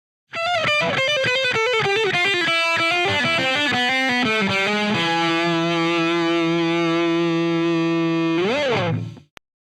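Background music: a distorted electric guitar playing a fast run of notes, then holding one sustained chord, ending with a quick pitch bend and cutting off abruptly.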